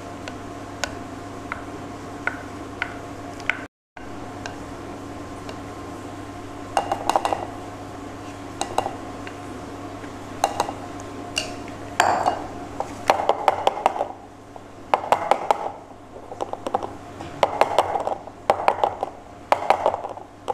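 Spatula scraping thick chocolate cake batter out of one stainless steel bowl into another, with repeated clinks and scrapes against the metal bowls that come thicker and louder from about seven seconds in. A steady hum runs underneath.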